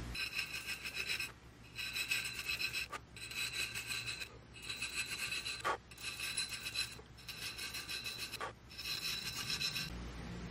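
A needle file rasping across the spine of a thin saw-steel knife blank held in a vise, cutting the row of small notches along the spine. The filing comes in about seven bursts of strokes, each roughly a second long, and a high ringing tone sounds through each burst.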